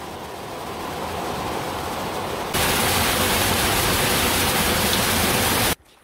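Water rushing down small river cascades, a steady rush that builds slowly, jumps to a louder, hissier rush about two and a half seconds in, and cuts off abruptly just before the end.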